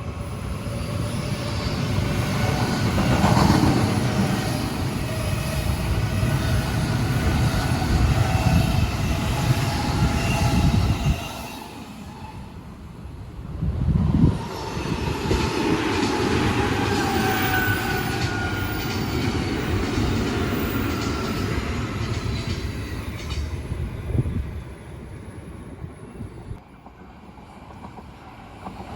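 Odakyu Line electric trains passing on the track, a heavy rumble of wheels on rail with thin high tones over it. The first train's sound drops away about eleven seconds in. Another swells up about fourteen seconds in and fades after about twenty-four seconds.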